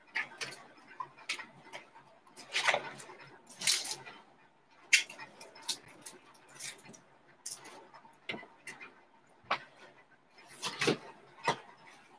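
Irregular clicks, taps and rustles of trading cards and card packaging being handled on a desk, with louder rustles about two and a half and four seconds in.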